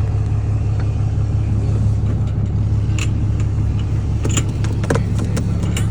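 Steady low hum of an idling vehicle engine, with a few sharp clicks and taps about halfway through and near the end.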